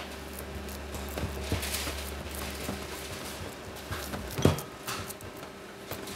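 A metal spoon knocking and scraping against a ceramic pudding basin as sticky Christmas pudding mixture is spooned in and pressed down, with the loudest knock about four and a half seconds in. A steady low hum runs underneath.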